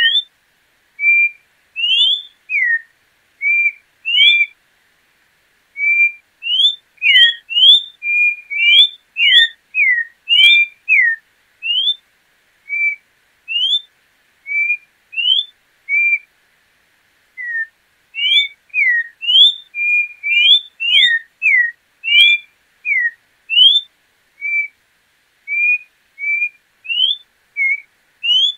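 Troupial (João-pinto) singing: runs of short, clear whistled notes, some rising and some falling, repeated in quick phrases with brief pauses between them.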